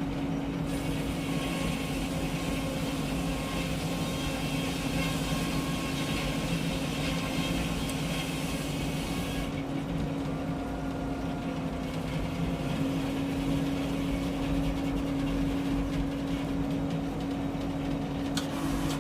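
Engine-driven Frick circular sawmill running steadily with an even hum. A higher hissing whir rides on it until about halfway through, then drops away, leaving the engine hum.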